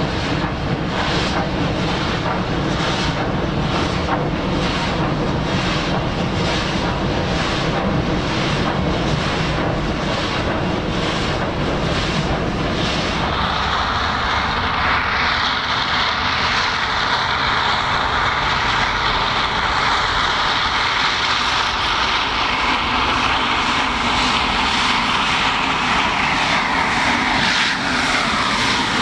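Pakistan Railways HG/S class 2-8-0 superheated broad-gauge steam locomotive working a train, its exhaust beating at about two a second. About 13 s in this gives way to a steadier hiss of steam as the locomotive comes on head-on, with a squeal that falls in pitch near the end.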